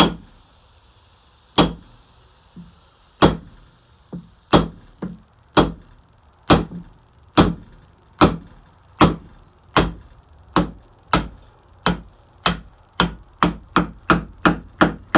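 An ordinary hammer striking a steel punch to drive the old wooden handle stub out of the eye of a double-bit axe head: about twenty sharp blows, spaced out at first and coming faster near the end, each with a brief high metallic ring.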